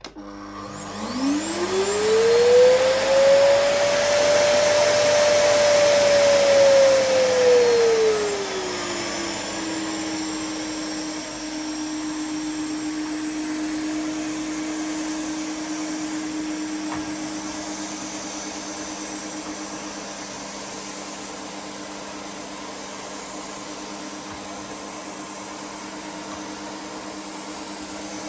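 Hoover TCP2010020 2000 W vacuum cleaner switched on with a click, its motor whine rising in pitch as it spins up. After about eight seconds the whine drops lower and quieter, and the cleaner keeps running steadily.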